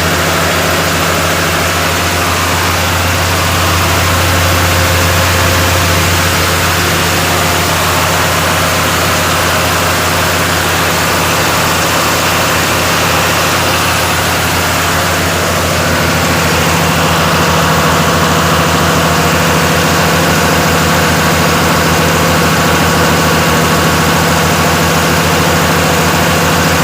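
Road roller's diesel engine idling steadily with a deep hum, getting slightly louder about sixteen seconds in.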